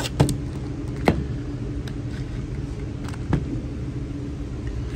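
Clear plastic blister packaging being handled, giving a few sharp clicks, the loudest just after the start, another about a second in and one more past three seconds, over a steady low hum.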